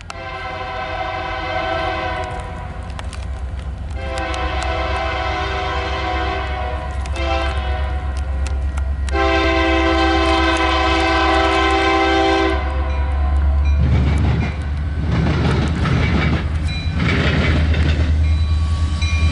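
A Union Pacific diesel locomotive's multi-tone air horn sounds four blasts: long, long, short, long, the grade-crossing signal. Then the rumble of the locomotives and the clatter of the intermodal train's wheels grow louder over the last few seconds as it approaches.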